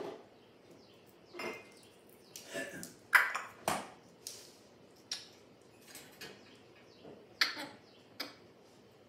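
African grey parrot making a series of short, sharp clicking sounds, about a dozen, irregularly spaced, the loudest about three seconds in.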